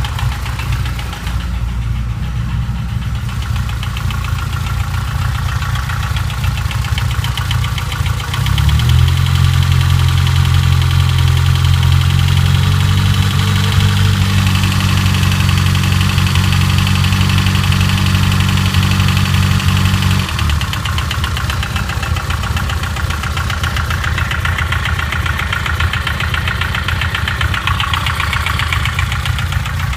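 BMW S14 four-cylinder engine idling, then held at a higher steady speed from about nine seconds in until about twenty seconds, then dropping back to idle. A loud, rapid mechanical ticking runs through it, a noise that the title ties to the timing chain.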